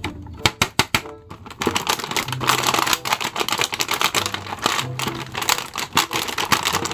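Thin plastic blister packaging crackling and crinkling as an action figure is worked out of its card: a few sharp clicks at first, then dense, continuous crackling from about a second and a half in. Background music plays faintly underneath.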